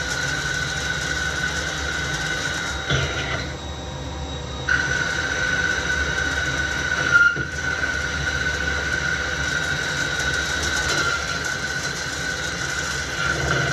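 CNC lathe cutting a spinning metal workpiece with an indexable square insert drill, a steady whine from the cut over the machine's running noise. The whine stops for about a second shortly after three seconds in, then resumes, with a brief sharper sound about seven seconds in.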